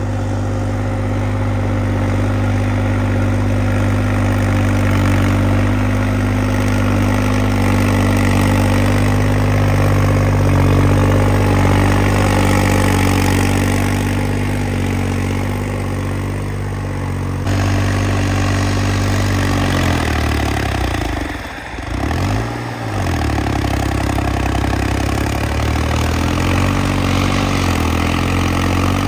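Farm tractor diesel engines running steadily under load, pulling cultivators through tilled soil. The sound changes abruptly about two-thirds of the way through, and there is a brief dip and waver in the engine note shortly after.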